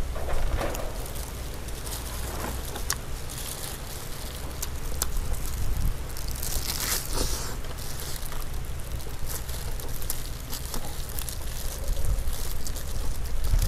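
Wind rumble on a clip-on microphone, with close chewing and the rustle and crackle of plastic-gloved hands pulling apart roast chicken. A louder rustle comes about seven seconds in.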